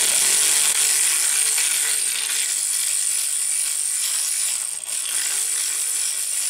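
Cordless ACDelco electric ratchet running steadily, with a slight dip about five seconds in, as it spins a loose 13 mm transmission pan bolt out.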